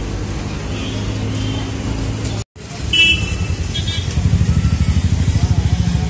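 Bus engine running with street traffic noise, heard from inside a moving city bus. The sound cuts out for a moment just before the middle, then two short high beeps like a vehicle horn, followed by a pulsing engine rumble that grows louder near the end.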